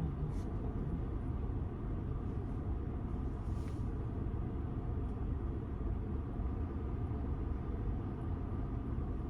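Car air conditioning blasting inside the cabin, a steady low rush over the car's rumble.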